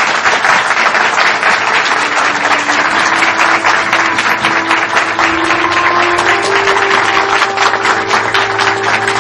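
An audience applauding, a dense, even clapping; from about two seconds in, held notes of background music come in under it.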